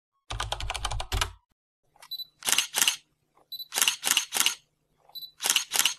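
Camera shutter sound effects: a rapid burst of about nine shutter clicks, then three times a short high beep followed by two or three shutter clicks, about every second and a half.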